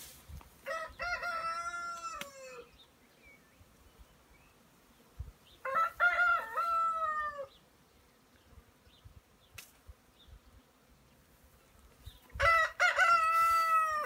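A rooster crowing three times, each crow lasting a second and a half to two seconds and dropping in pitch at its end.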